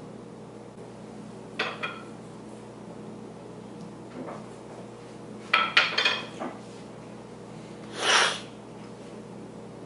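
A plate clattering against a stone countertop: a brief clink about two seconds in, then a cluster of sharp knocks as it is set down in the middle. Near the end comes a short breathy burst, a cough into the fist while chewing.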